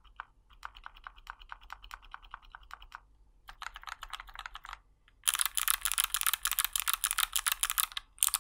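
Rapid typing on a small mechanical-switch calculator keypad with a mix of heavily lubed Gateron brown and Kailh Box White switches, about eight keystrokes a second. The first half is soft, muted keystrokes, which fit the quiet lubed browns. From about five seconds in, the keystrokes turn much louder and sharper, which fits the clicky Box Whites.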